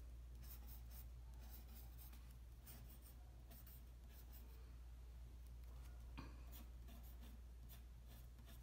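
Pencil scratching on paper in short repeated strokes, drawing curved lines, faint over a low steady hum. There is a light tap about six seconds in.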